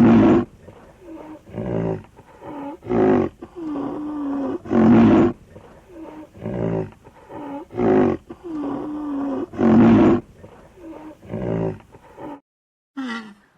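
A tiger roaring again and again: loud roars every second or two with long, even moaning calls between them. The calls cut off abruptly about twelve seconds in, and a brief different sound follows near the end.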